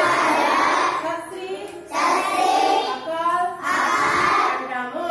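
A class of schoolchildren chanting together in unison, in short sing-song phrases of about a second and a half with brief pauses between them.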